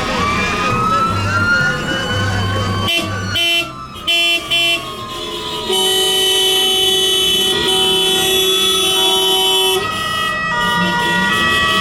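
Fire engine sirens wailing, their pitch rising over the first few seconds and then falling, with short horn blasts about three and a half to five seconds in and a long steady horn note from about six to ten seconds: fire apparatus running with warning signals to an emergency call.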